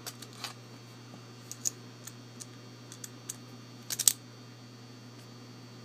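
Light metallic clicks and taps from handling a euro cylinder lock and small picking tools, scattered, with a quick cluster of three about four seconds in that is the loudest. A steady low mains hum runs beneath.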